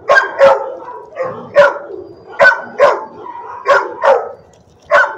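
A dog barking, about eight sharp barks, several in quick pairs, with a short pause before the last one.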